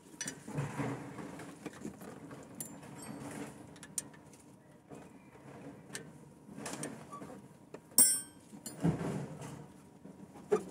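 Light metallic clicks and scraping of a spanner, screwdriver and feeler gauge on the rocker-arm adjusting screws of a stopped engine during a tappet clearance adjustment, with one sharp ringing metal clink about eight seconds in.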